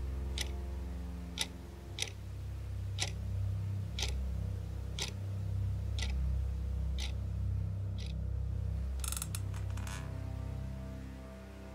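Wall clock ticking about once a second over a low, sustained music score. The ticks stop about eight seconds in, and a brief scratchy noise follows.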